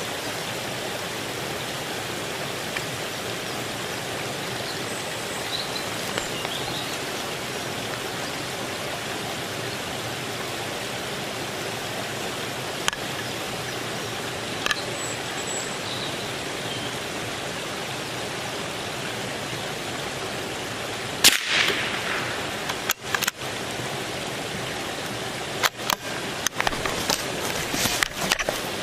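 Steady rushing outdoor noise at a beaver pond, with a few faint high chirps. From about two-thirds of the way through come a loud crackle and a run of sharp knocks and rustles from the camera being handled.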